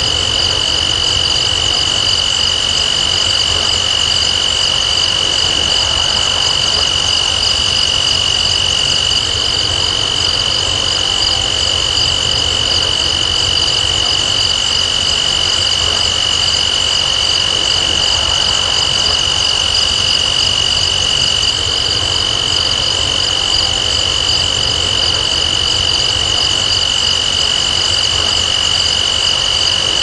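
A dense chorus of crickets and other insects trilling without a break: one steady high-pitched tone with higher shimmering layers above it, over a low rumble of wind on the microphone.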